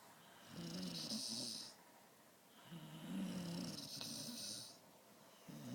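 A Dalmatian snoring: two long snores, then a third beginning near the end. Each is a low pitched snore with a breathy hiss over it.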